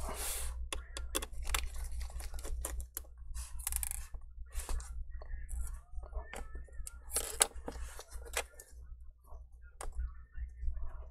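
Irregular small clicks, taps and short scrapes of gloved hands and a metal pry tool working at the edge of a laptop screen panel.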